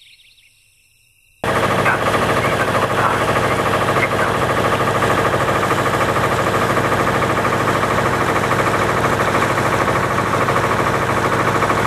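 Tour boat's engine running steadily, heard on board. It cuts in abruptly about a second and a half in, after near silence.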